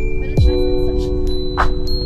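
Background music: held chords with bell-like chime notes over a beat of deep, falling-pitch drum hits.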